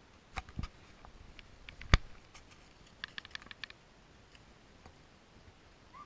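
Dry leaf litter and twigs crackling underfoot: scattered sharp clicks, one loud crack about two seconds in, and a quick run of clicks around three seconds in.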